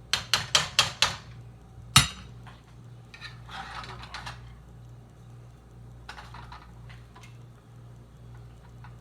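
A utensil knocking against a pot: five quick taps, then one sharper knock about two seconds in, followed by a short scrape and a few light clinks.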